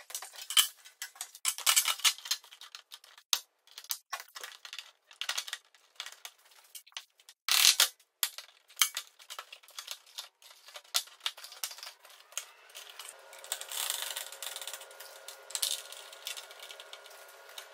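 Irregular clicks, taps and rattles of hard plastic body panels and fasteners being handled and pressed into place on a Kawasaki Mule SX, with one stronger knock about halfway through. A faint steady hum comes in about two-thirds of the way through.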